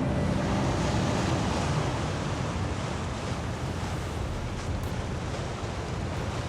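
Steady rushing noise of sea surf, slowly growing quieter.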